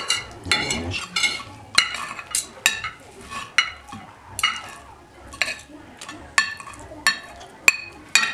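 Metal knife and fork clinking and scraping on a ceramic plate while cutting up food, with sharp ringing clinks about once or twice a second.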